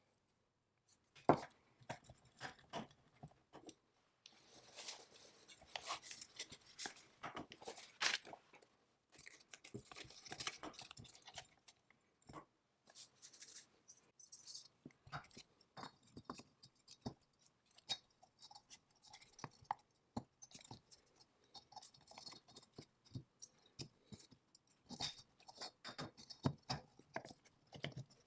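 Faint, irregular clicks and taps of hands working the piston rings into the grooves of the McCulloch 99 chainsaw's piston, with a longer stretch of rustling handling in the first half. Near the end the finned cylinder is brought down over the piston.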